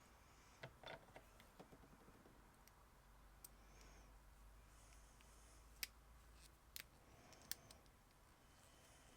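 Faint, scattered clicks and taps of the small plastic parts of a vintage G.I. Joe action figure being handled and fitted back together, over near-silent room hiss.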